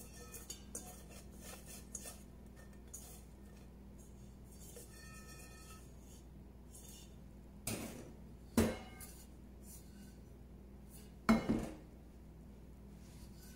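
Stainless steel bowl and perforated metal strainer being handled and set down: faint light clinks and rustling, then a few sharp metal clanks in the second half, the loudest a close pair near the end.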